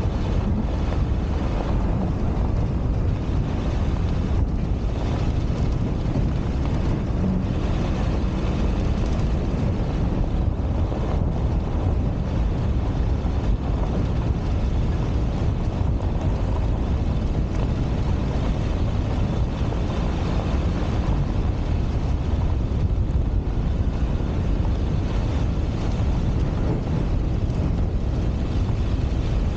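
Steady low rumble of wind buffeting a microphone mounted outside the cab, over a 1999 Ford F-250 pickup driving along a dirt road.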